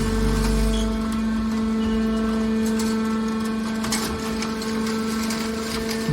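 Metal press baler running: a steady motor and pump hum, with a deeper rumble that drops away about a second in and a few short metallic clicks near the middle.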